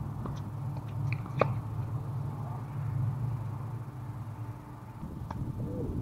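Tennis ball struck by a racket with a sharp pop about a second and a half in, with a few fainter pops of bounces and hits farther off, over a steady low rumble.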